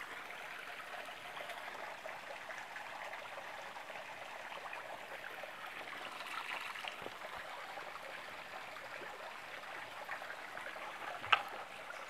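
Stream water running steadily over rocks, with one sharp knock near the end.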